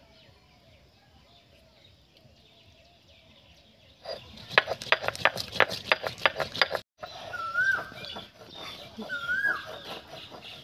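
Black peppercorns cracking as they are crushed under a stone roller on a flat grinding stone: a quick run of sharp cracks lasting nearly three seconds, starting about four seconds in. After that an animal's short rising-and-falling call repeats about every second and a half.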